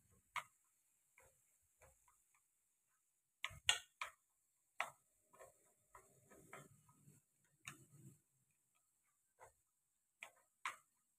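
Wooden chopsticks tapping and scraping against a metal pan while stirring food: irregular sharp clicks, the loudest in a quick cluster a few seconds in and again near the end, with a faint rustle of the food being turned in between.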